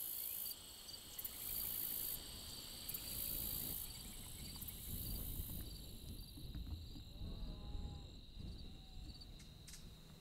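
Evening insect chorus of crickets trilling steadily. Loud, pulsing high buzzes in the first half stop about halfway through, over a low rumble. A faint drawn-out animal call comes about three-quarters of the way in.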